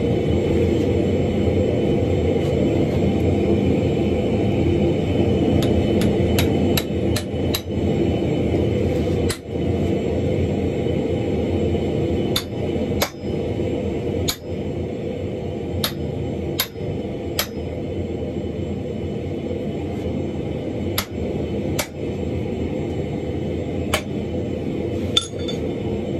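Hand hammer striking a punch held on a glowing block of wrought iron on a steel anvil, in separate sharp metallic blows. A quick run of about five strikes comes some six seconds in, then single blows at uneven intervals, all over a steady low rumble.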